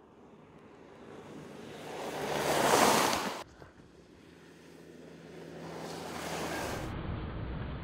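Mercedes E 220d 4Matic estate driving through slush: the hiss and spray of its tyres swell as it passes close, then cut off abruptly about three and a half seconds in. A second approach builds up again, with a deeper rumble near the end.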